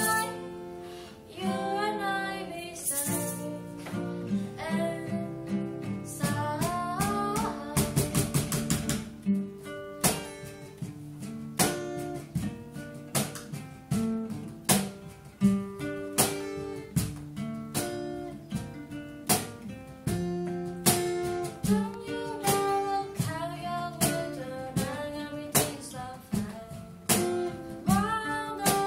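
Music: a song with acoustic guitar plucked and strummed under a singing voice, including a quick flurry of strums about eight seconds in.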